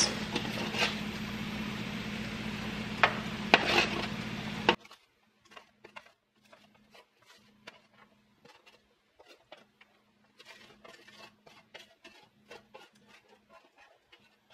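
A slotted plastic spatula scrapes roasted diced potatoes off a nonstick sheet pan into a skillet, with light scrapes, taps and the clatter of potato pieces dropping. A steady hum runs underneath for the first few seconds and cuts off suddenly about five seconds in.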